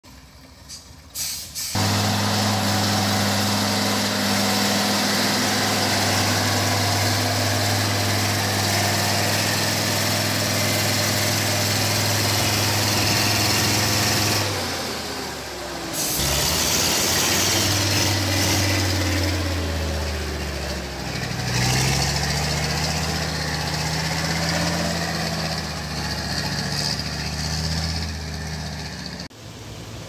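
Heavy logging truck's engine running under load on a muddy track, steady for the first half. After a short break about halfway through it runs on with its pitch shifting, rising around twenty seconds in as it revs.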